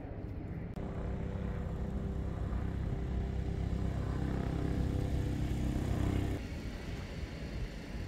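An engine running steadily with a low rumble and a steady hum, growing louder over several seconds and then cutting off abruptly about six seconds in.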